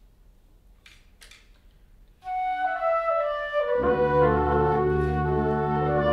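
Wind ensemble entering about two seconds in: a woodwind melody stepping downward, joined about a second and a half later by sustained low brass notes that fill out the sound.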